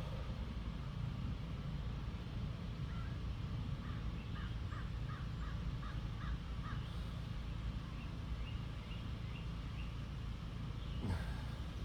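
A bird calling in two quick runs of short repeated notes, the second run higher than the first, over a steady low rumble. A single knock sounds near the end.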